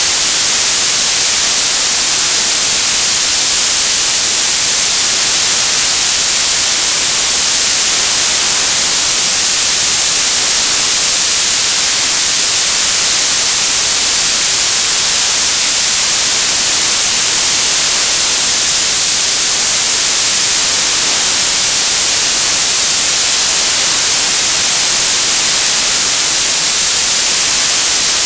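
Television static: a loud, steady hiss of white noise, strongest in the treble, unchanging throughout.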